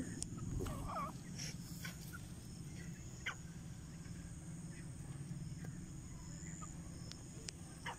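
A few faint, short calls of grey francolins, scattered over a steady low hum, with a few light clicks.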